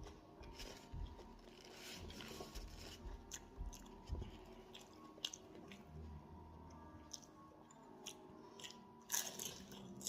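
Someone biting and chewing a fried egg roll, with irregular crunches of the crisp wrapper; the loudest crunch comes near the end.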